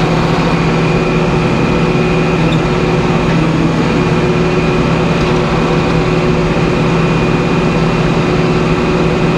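Sawmill machinery running steadily, a loud even drone with a fixed hum, while the hydraulic chain log turner works the squared white pine log on the deck.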